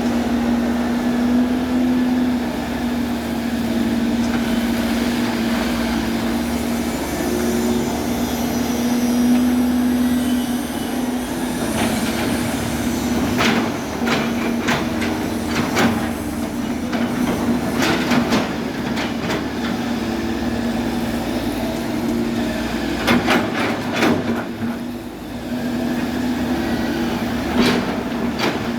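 Excavator's engine running steadily with a constant hum, joined from about halfway through by a series of sharp metallic clanks and knocks.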